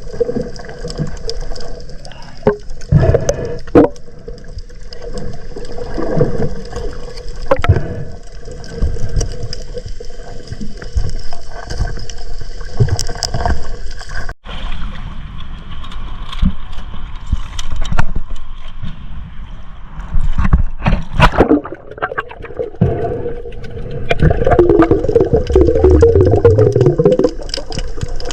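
Water sloshing and gurgling around a camera in or at the water, with scattered knocks and bumps. The whole sound changes abruptly about halfway through, like a cut to another shot.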